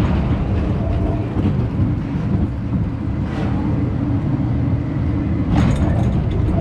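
Spinning roller coaster car rolling along its steel track: a steady, loud low rumble of wheels on rails.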